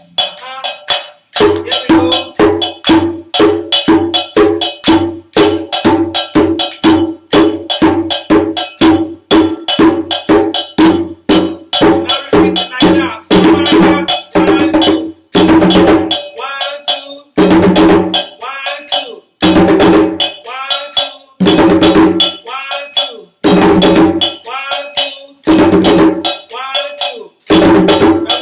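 Ghanaian Kpanlogo hand drums played together by a group in a steady, dense rhythm. After about fifteen seconds the playing breaks into phrases with short pauses between them, about two seconds apart.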